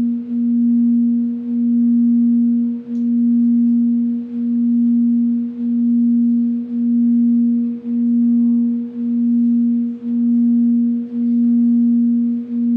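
Handheld singing bowl sounding a single sustained tone as a wand is rubbed around its rim, with a fainter overtone an octave above. The tone swells and dips about once a second with each circuit of the wand.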